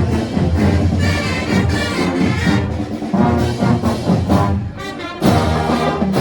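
Fanfarra (Brazilian marching band) playing, its brass section to the fore with trombones and trumpets; the music dips briefly and comes back in loudly about five seconds in.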